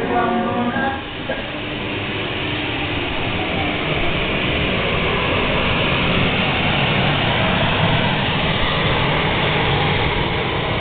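Electric air blower of an inflatable bouncy castle running steadily, a constant even whoosh and hum. It keeps the inflatable blown up.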